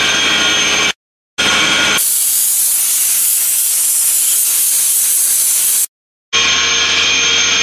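Cleaning spray hissing from a wand nozzle against a compressor's coupling hub: a loud, steady, high-pitched hiss lasting about four seconds that starts and stops abruptly. A steady machinery drone fills the moments before and after it.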